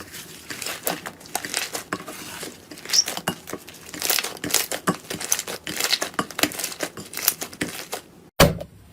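Slime being squeezed and poked by hand, giving a quick, uneven run of sticky clicks and crackling pops. There is a brief gap near the end, then more crackling.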